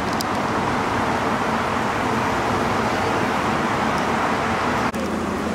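Steady road traffic noise: vehicle engines running and tyres on the road, with a brief dip about five seconds in.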